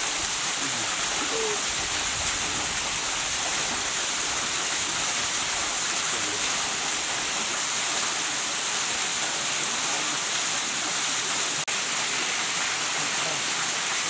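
Steady rushing of a waterfall: a constant, even roar of falling water. It cuts out for an instant near the end.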